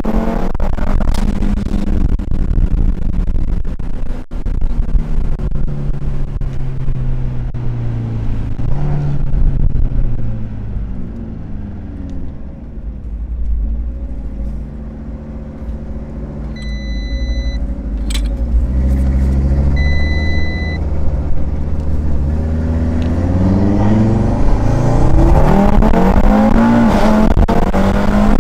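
Audi RS3's turbocharged five-cylinder engine running under load, its revs rising and falling through several pulls. It eases off in the middle and builds strongly again near the end. An electronic beep sounds twice about two-thirds of the way through.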